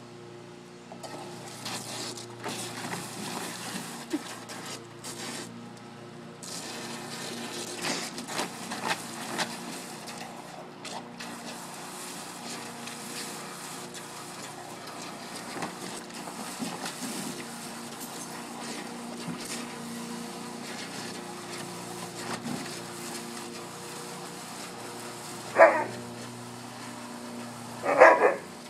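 Alaskan Malamute splashing and mouthing at water in a plastic kiddy pool, with irregular splashes throughout. Near the end, two short, loud barks from the dogs at the pool.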